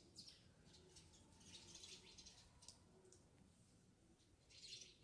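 Near silence, with a few faint wet squelches and clicks as grated raw mango is squeezed by hand to press out its juice.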